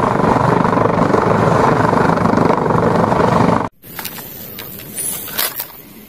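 HH-65 Dolphin rescue helicopter hovering, its rotor and turbine noise loud and steady; it cuts off suddenly about three and a half seconds in. After it, a few light clicks and knocks of plastic toys being handled.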